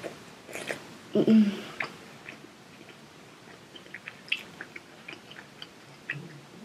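A child chewing a bite of sausage with closed-mouth chewing, small mouth clicks and smacks every half second or so. A short hum comes from her about a second in.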